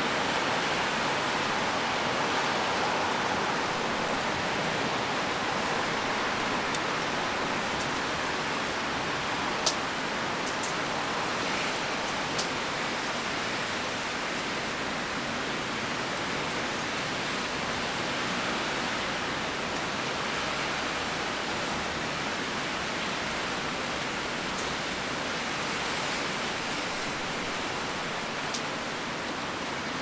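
Steady rain, an even hiss with no pitch, with a few sharp ticks scattered through it, the loudest about ten seconds in.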